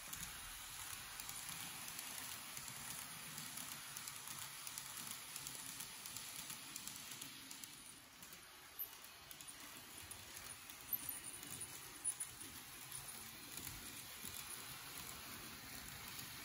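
Tomix N-scale model of the Odakyu Romancecar 50000 VSE running along its track: a faint, steady rattle of wheels on rail, with a few sharper clicks in the second half.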